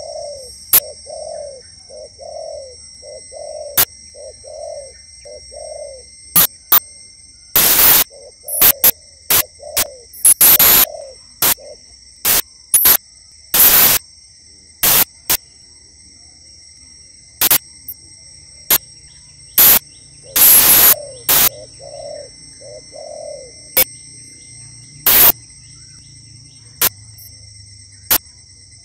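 Spotted doves cooing: runs of short low coos, about one and a half a second, at the start, around ten seconds in and again around twenty-one seconds in. Several short, loud bursts of noise break in, and a steady high-pitched hum runs underneath.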